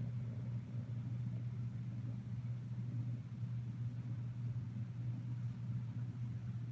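Kitten purring steadily close to the microphone while being petted, a continuous low fluttering hum.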